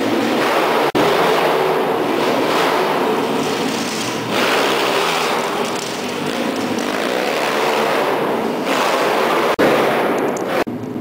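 Pit bike engine running hard on a dirt track, its level rising and falling with the throttle, echoing in a large hall, with two brief cut-outs.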